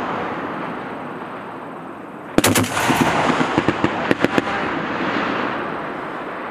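M2 .50 caliber heavy machine gun firing a short burst about two and a half seconds in, followed by a few more reports. Each burst trails off in a long rolling echo across the range, and the echo of an earlier burst is still fading as the sound begins.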